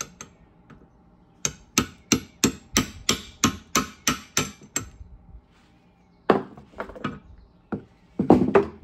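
Hammer tapping the pinion flange of a Triumph TR4 rear axle differential, about eleven quick sharp strikes at roughly three a second to loosen it on the pinion shaft. A few more irregular metal knocks follow near the end as the flange is worked off.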